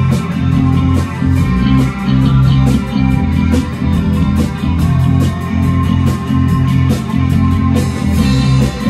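Rock band playing live: electric guitar strummed over bass guitar, with drum and cymbal hits keeping a steady beat.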